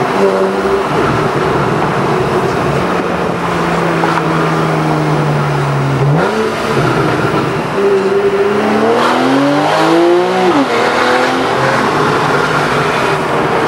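Porsche 911 Carrera 4S flat-six with a sports exhaust, heard from inside the car. The engine note sags slowly as the car eases off, gives a quick rev about six seconds in, then climbs steeply under acceleration before dropping sharply at a gear change near the ten-second mark.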